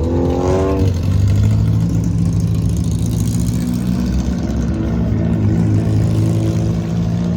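Hill-climb race car engine revving up sharply through its first second, then running steadily at low revs.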